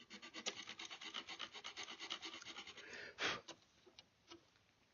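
A small hand file rasping across the wooden rifle stock in quick short strokes, cutting the shallow rings beside the carved wedding band. After about three seconds there is one louder stroke, then the filing mostly stops.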